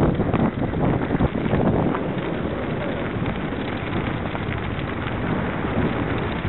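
Wind buffeting the microphone of a camera riding on a moving mountain bike, over the rumble and rattle of knobby tyres and the bike's frame on a gravel forest track. There are sharper knocks in the first couple of seconds, then a steadier rush.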